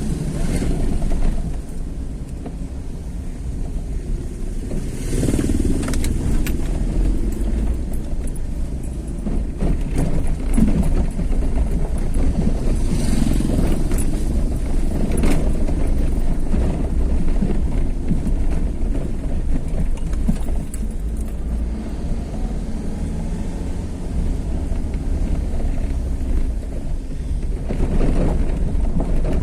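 Road vehicle driving along a road: steady low engine and road rumble, with a few brief swells of passing noise.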